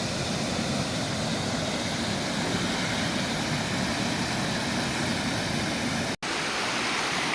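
Creek water rushing steadily over a storm-damaged dam, an even rushing noise. The sound drops out for a split second about six seconds in.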